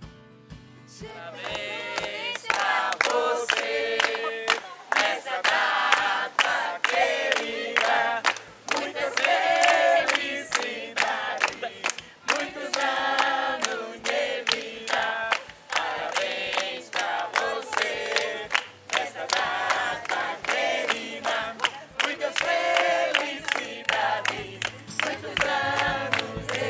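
A group of adults singing a birthday song together, with steady rhythmic hand clapping about three claps a second.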